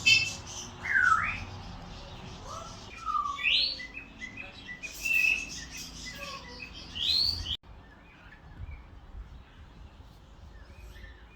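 Shelter parrots calling: a series of loud squawks and whistled calls that glide upward in pitch, coming in bursts. The calls stop abruptly about seven and a half seconds in, leaving only faint chirping.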